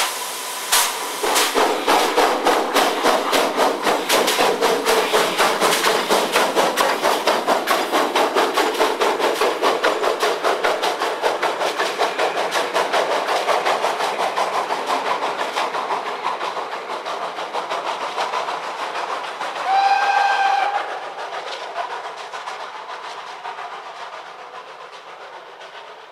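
PKP class Pt47 steam locomotive starting away with a passenger train: its exhaust chuffs begin slow and quicken into a rapid beat as it gathers speed. Near the end a steam whistle blows once for about a second, and the sound then fades as the train draws away.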